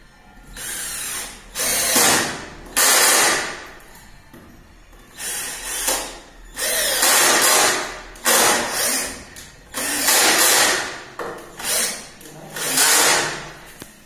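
Handheld cordless drill run in about nine short bursts of a second or less, with brief pauses between them.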